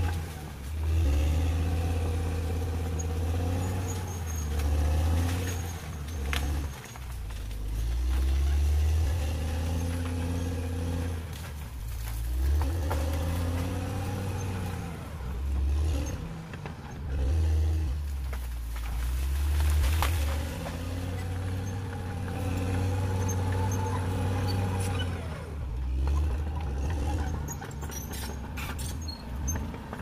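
Caterpillar D6R XL bulldozer's diesel engine working under load as it pushes soil and logs, revving up and easing off again every few seconds. A few sharp clanks come through, one about six seconds in, one around twenty seconds and a small cluster near the end.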